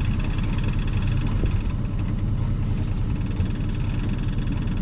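A sailboat's auxiliary engine idling steadily while the boat is tied up in its slip, ready to leave the dock.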